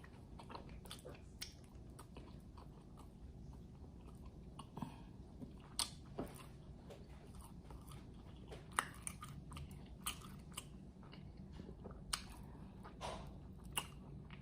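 A person chewing and biting fried chicken wings close to the microphone: scattered wet mouth clicks and light crunches over a low steady hum.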